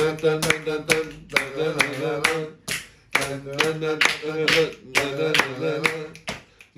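A song: a voice singing held notes over a steady beat of hand claps, about two claps a second.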